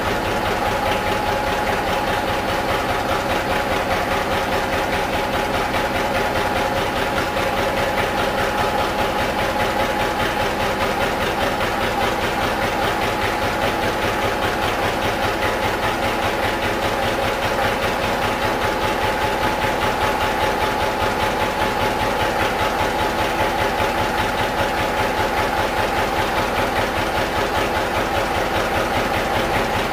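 Lister CS 6/1 single-cylinder slow-speed diesel running steadily while driving a generator, its exhaust going out through twin car silencers: a slow, even beat of firing strokes, with a steady tone over it.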